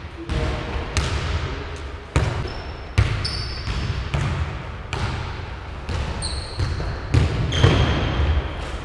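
A basketball bouncing and being dribbled on a hardwood gym floor, irregular sharp thuds that ring on in a large echoing hall. There are several brief high sneaker squeaks on the wood.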